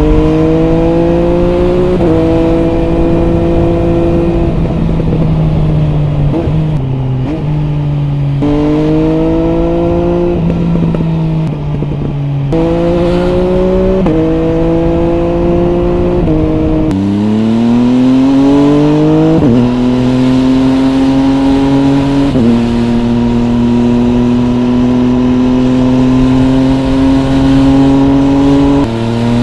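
MV Agusta Brutale 800 RR's three-cylinder engine through a MV Agusta Corse three-outlet exhaust, pulling through the gears: the revs climb and drop in steps at each gear change. About halfway through it pulls hard from low revs, then holds fairly steady revs for the last several seconds.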